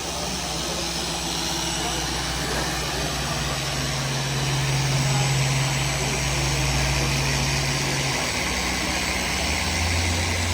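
Several electric orbital sanders running steadily, wet sanding car paint with soapy water. A humming note drops lower about eight seconds in as a tool changes speed.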